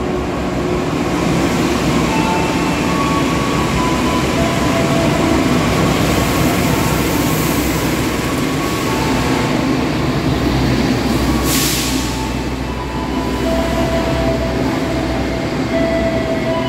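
Passenger train running at speed on the main line, a steady loud rumble of wheels on rails, as it meets an oncoming train, KA Turangga, on the other track. A short rush of hiss comes about twelve seconds in.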